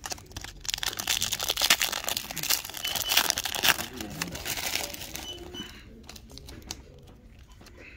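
Plastic foil wrapper of a baseball card pack crinkling as it is handled and torn open, busiest during the first five seconds, then settling down.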